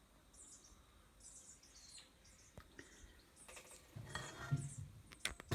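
Faint birds chirping in the background, short high chirps repeating. From about four seconds in, low rumbling handling noise, with a few sharp clicks near the end.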